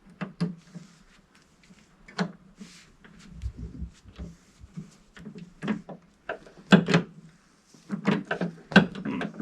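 Irregular clacks and knocks from a new Honda HRX217 walk-behind mower being handled and rolled back and forth, with a low thud about three and a half seconds in.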